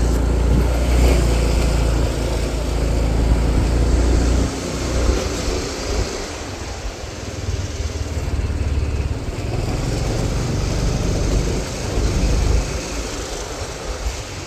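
Motor vehicle running with road noise and a heavy low rumble throughout, rising and falling a little in level.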